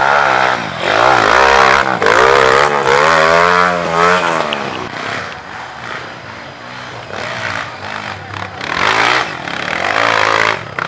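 Dirt bike engine revving hard on a steep hill climb, the pitch rising and falling repeatedly as the throttle is worked, easing off in the middle and revving hard again near the end.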